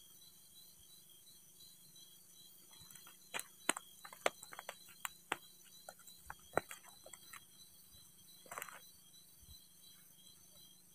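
Crickets chirring steadily at night, with a run of sharp clicks and taps from about three to seven seconds in and a short rustling burst a little later.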